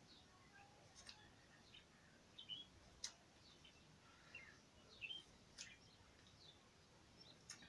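Near silence: faint background hiss with a few scattered soft clicks and two short high chirps.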